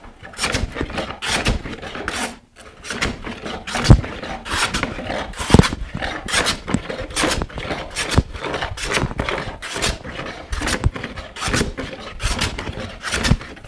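Hand plane shaving a walnut board lengthwise in many quick, repeated rasping strokes. The board is bowed, so the plane cuts at the two ends and not in the middle until it is flat.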